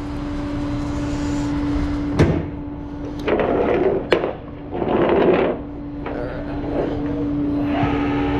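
Flatbed tow truck's hydraulic winch running the cable in, a steady hum under it, with two sharp clicks and two short rattles of the cable and hook in the middle; a fuller machine note comes in near the end.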